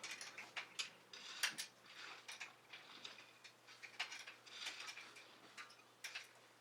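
Light, irregular metal clicks and clinks of hand tools working on a bicycle's stamped steel caliper brake and its mounting bolt.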